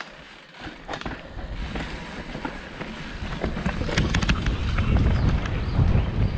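Mountain bike ridden down a trail over a stair drop, its frame and tyres giving sharp knocks and rattles about a second in and again around four seconds in, under rumbling wind noise on the microphone that grows louder as it picks up speed.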